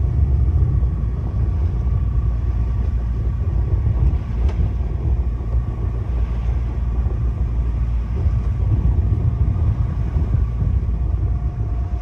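Steady low rumble of a sailboat motoring in calm conditions, with a faint steady high whine over it.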